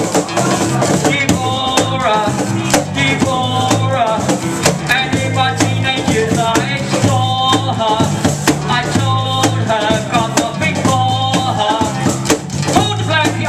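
Live acoustic band playing: strummed acoustic guitar, bass guitar holding steady low notes, and a cajon slapped in a quick rhythm, with a voice over them through a microphone.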